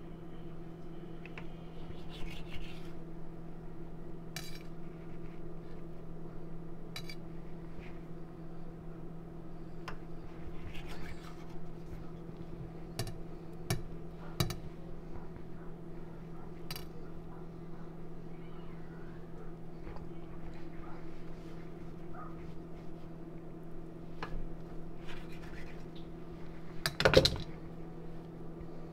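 Chef's knife cutting through a log of cinnamon roll dough and knocking on a granite countertop in scattered sharp clicks, over a steady low hum. Near the end comes one louder clatter, the knife being set down on the stone counter.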